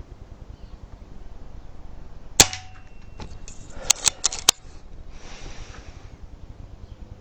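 An air rifle, a Retay T20, fires once with a sharp crack and a brief ring, followed about a second and a half later by a quick run of sharp clicks, then a short soft rustle.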